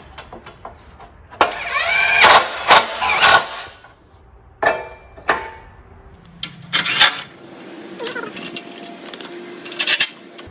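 Hand tools on metal while the lawn tractor's exhaust pipes are tightened: a series of knocks and clanks, with a steady mechanical hum through the second half.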